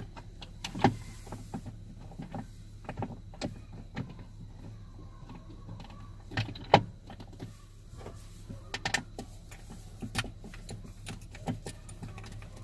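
Irregular metal clicks and knocks from hex bolts, spacers and tools being handled while threading a grab-handle bolt into a Jeep Wrangler, the loudest knock a little past halfway, over a steady low hum.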